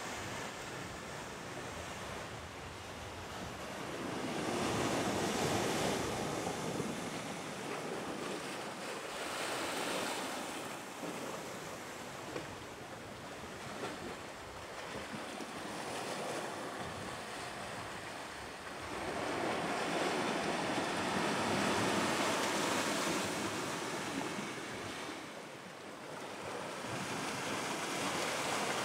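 Small sea waves washing in among boulders on a rocky shore, the surf swelling and easing in slow surges several seconds apart.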